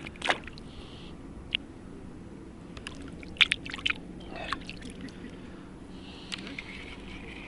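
Spinning-rod and reel handling during a lure retrieve: a few sharp clicks, a quick cluster of them about halfway through, and short stretches of soft reel whirring, over faint water sounds.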